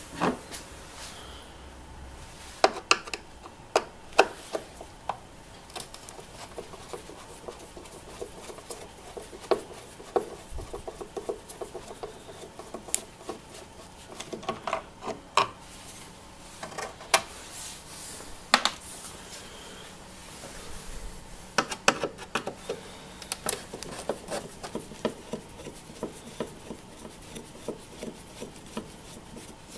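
Phillips screwdriver working the screws that hold a car tail-light unit: irregular sharp clicks and scraping of the tip against the screw heads and plastic, some clicks coming in quick clusters.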